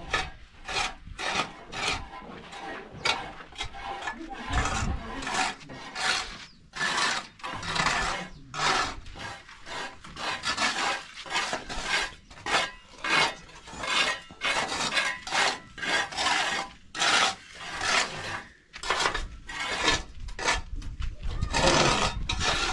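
Repeated rough scraping strokes, roughly two a second.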